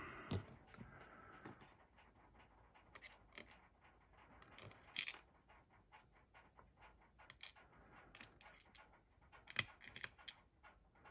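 Faint, scattered clicks and light metallic clinks of small lock parts being handled, with sharper ticks about halfway through and again near the end.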